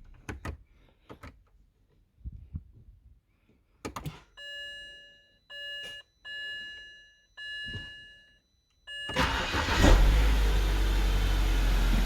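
A few clicks, then a warning chime beeps four or five times. About nine seconds in, the BMW E87's engine starts and settles into a steady idle, running smoothly now that the blown fuse behind its no-start has been replaced.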